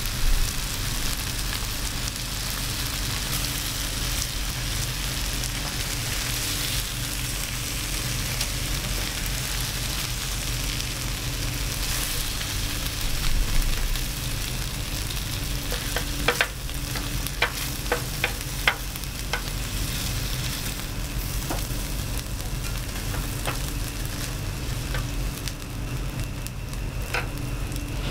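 Gochujang-marinated pork belly sizzling on a foil-lined tray over a gas grill, stirred and scraped with a plastic ladle, over a steady low hum. A quick run of sharp clicks about halfway through as the ladle taps while the meat is scooped onto a plate.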